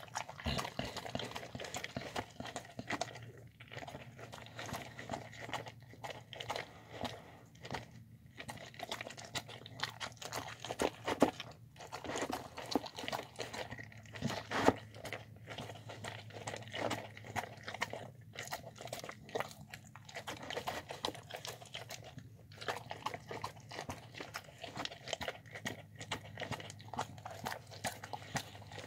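Dog eating a soft home-cooked meal of chicken, spinach, rice and lentils from a bowl, close up: quick, irregular wet chewing and mouth clicks, with a few brief pauses.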